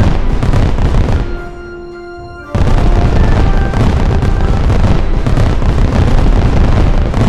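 Loud background music with a dense, driving mix. About a second in it drops to a single held chord for about a second, then the full track comes back in abruptly.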